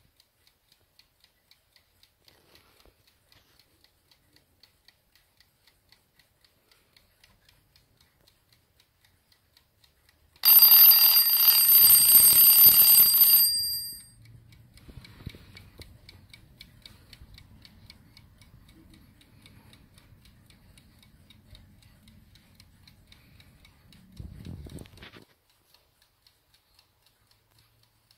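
Antique Ansonia brass alarm clock ticking steadily; about ten seconds in its brass dome bell rings loudly for about three seconds, then stops and dies away. A short rubbing or rustling sound of the clock being handled comes near the end, with the ticking going on.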